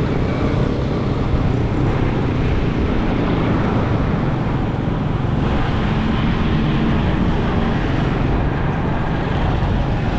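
Steady road noise from a motorcycle riding through city traffic: its engine running, with the noise of surrounding vehicles. A low hum rises for a couple of seconds about halfway through.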